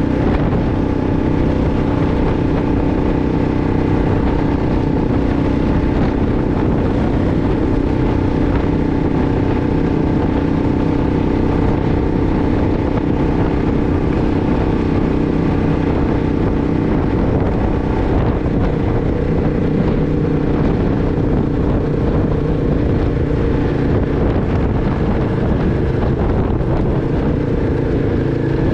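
2006 Arctic Cat 500 ATV's single-cylinder four-stroke engine running steadily under way, its note shifting in pitch about two-thirds of the way through.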